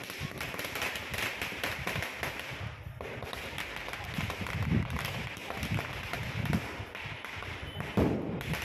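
Firecrackers packed inside a burning Ravana effigy crackling and popping in rapid, irregular bursts, with a louder bang near the end.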